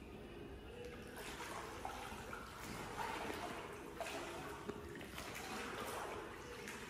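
Pool water sloshing and lapping as a swimmer in a heavy leather suit paddles and floats on his back, in soft irregular swells with the odd small splash.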